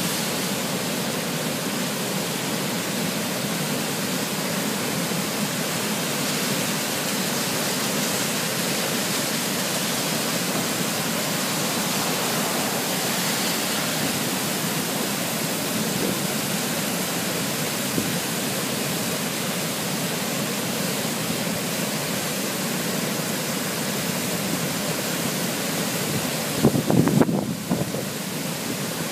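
Floodwater from a storm-swollen creek pouring over a dam spillway: a steady, full rushing roar. Near the end a brief louder, lower rumble with a few bumps cuts across it for about a second.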